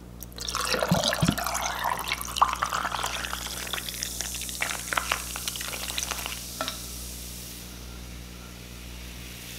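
An orange-mango sparkling drink poured from a bottle over ice into a glass boot mug, splashing and clinking against the ice cubes for about seven seconds. Then a steady fizzing hiss as the carbonation settles.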